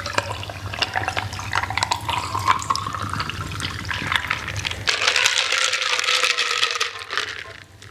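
A drink poured from a can over ice into a glass jar mug, with crackling and small ticks as it fills; in the last few seconds it is stirred with a plastic straw among the ice.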